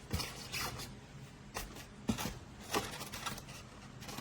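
Soft handling noises: a handful of short clicks and rustles of a foam-and-plastic RC plane and its controller being handled, over a faint steady hum.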